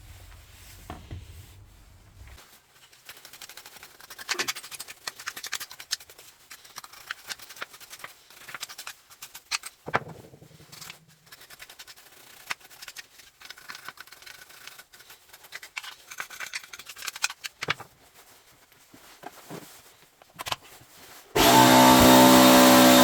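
Scattered small clicks and scrapes of parts being handled, then near the end a Bosch angle grinder switches on abruptly and runs at full speed with a loud, steady whine.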